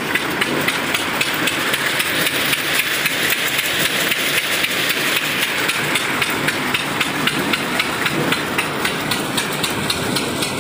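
Groundnut decorticator running and shelling peanut pods with a dense, steady rattle, driven by a flat belt from a stationary engine that keeps up a steady, regular knocking beat underneath.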